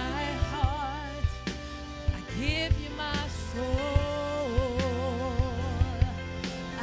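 Gospel worship music: a singer holding and bending long notes with vibrato over keyboard chords and a drum kit keeping a steady beat.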